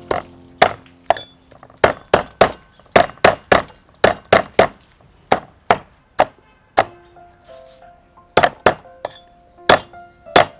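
Cleaver chopping garlic and green onions on a thick wooden chopping block: loud, sharp strikes in quick irregular runs, with a short pause about two-thirds of the way through.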